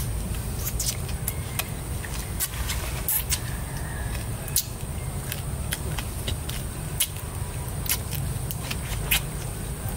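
Forest ambience: a steady low rumble under a constant high-pitched insect drone, with sharp clicks scattered irregularly throughout.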